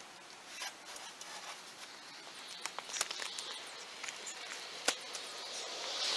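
Footsteps crunching on loose gravel and rock, with scattered clicks of stones shifting. A sharp knock about five seconds in as a bag of concrete mix is set down on the stack.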